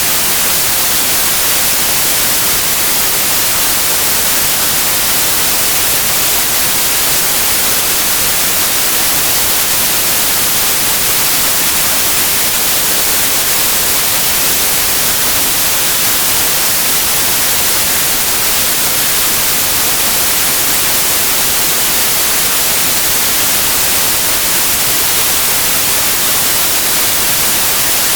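Steady white noise: an even, unchanging hiss, brightest in the highest frequencies, with no melody, rhythm or instruments.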